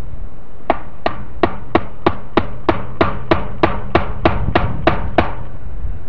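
A hammer driving fence staples into a wooden fence post: about fifteen sharp, evenly spaced blows, roughly three a second, stopping about a second before the end.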